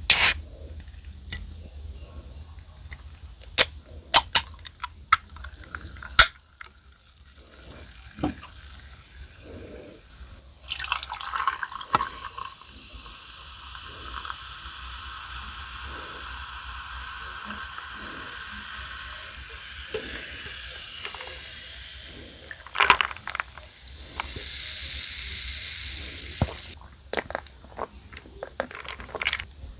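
A few sharp clicks and taps, then a steady run of water lasting about sixteen seconds, growing louder before it cuts off, followed by more light taps.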